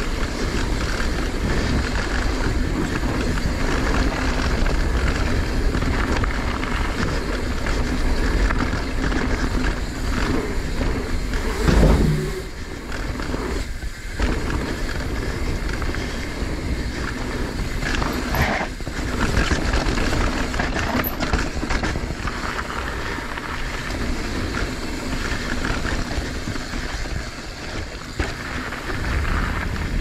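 Mountain bike descending a dirt downhill trail, heard through a GoPro action camera: steady wind rush on the microphone, with tyres and bike chattering over the ground. There is one louder thump about twelve seconds in.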